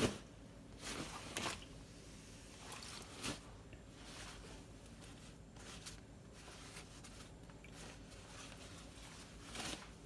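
A few brief rustles and squishes of a wet polyester jacket being lifted and shifted in a sink of hot water, the strongest at the very start and about a second in.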